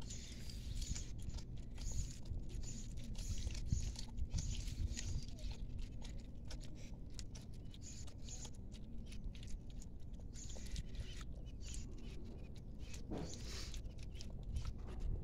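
A puppy and a cat eating from a pile of food on paper: quick, irregular chewing clicks, over a steady low rumble.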